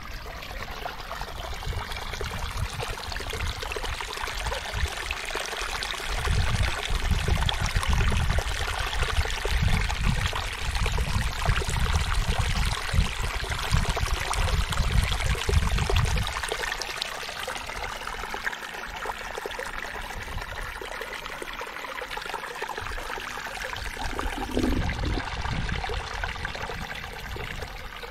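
Irrigation water from a flooded rice paddy running and splashing steadily over a stone lip into the drainage ditch. Wind buffets the microphone with low rumbling gusts from about six to sixteen seconds in, and briefly again near the end.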